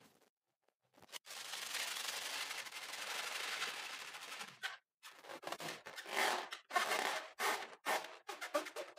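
Rubber balloon stuffed with foam beads being rubbed and squeezed in the hands. A steady rustling for about three seconds gives way to a quick run of short squeezes, about three a second.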